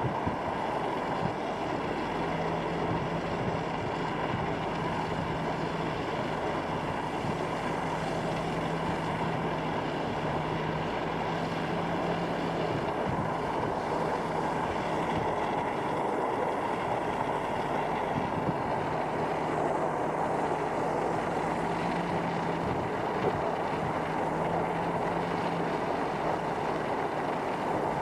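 Truck driving along a road: steady tyre and road noise with a low engine hum that drops in and out.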